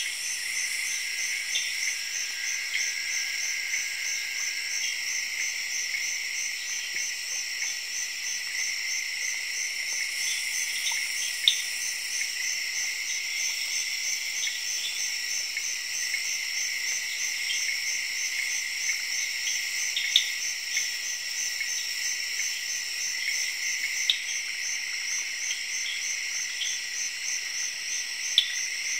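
Night-time insect chorus in a tropical forest: a steady shrill drone with a pulsing trill above it, about two pulses a second, and scattered short chirps and a few sharp clicks.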